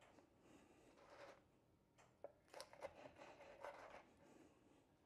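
Chef's knife cutting through a crisp pan-fried scallion pancake on a wooden cutting board: faint crunching strokes, with a few sharp clicks of the blade meeting the board near the middle.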